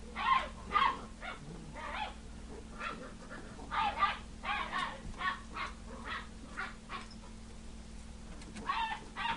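Basset hound puppy yapping in play: a string of short barks, a couple a second, with a brief pause near the end before a last few.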